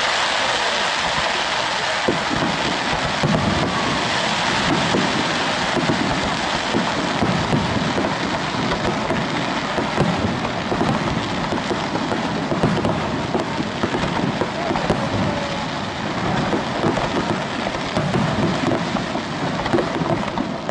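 Fireworks going off continuously: a dense crackle of bursting stars, like heavy rain, over repeated low booms of shell bursts.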